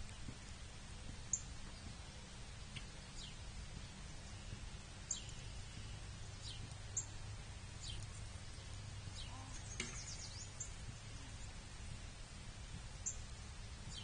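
Wild songbirds calling: a short, very high chip about five times, a few seconds apart, among fainter descending call notes, over a low steady hum.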